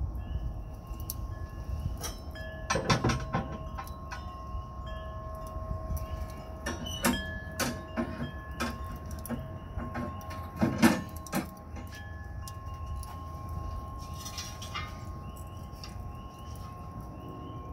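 Metal clanks and clinks as a wire wok-ring stand is set down into the ceramic grill, the metal ringing on after each hit; the loudest knock comes about two-thirds of the way through.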